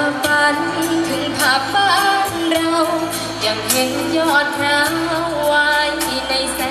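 A woman singing a Thai luk thung song into a microphone over backing music with a steady beat.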